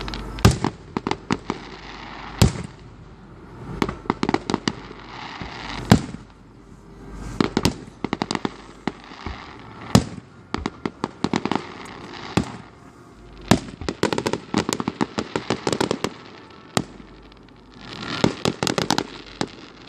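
Fireworks display: single loud bangs every few seconds, interleaved with dense clusters of rapid crackling pops.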